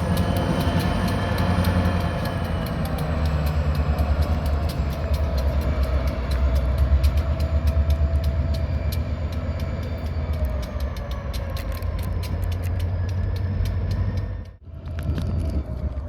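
Turbocharged EMD GP-series diesel locomotives working under load while switching cars: heavy low engine rumble with a high turbo whine that slowly falls in pitch, over rapid clicking. Near the end the sound drops out for a moment, then comes back.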